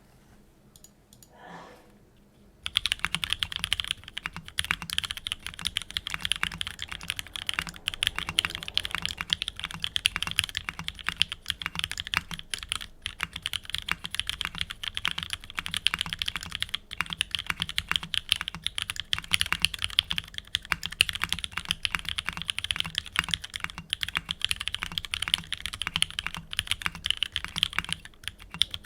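Fast, continuous typing on a Keycult No.1 rev.2 TKL mechanical keyboard with a stainless steel case, JWK black nylon linear switches with 105-lubed springs, an aluminium plate and ePBT keycaps, starting about three seconds in.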